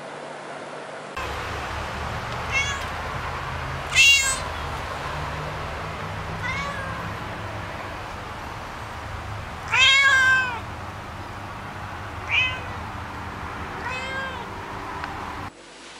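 Domestic cat meowing repeatedly: about six meows a couple of seconds apart, two of them much louder, the louder second one the longest. A steady low rumble runs underneath.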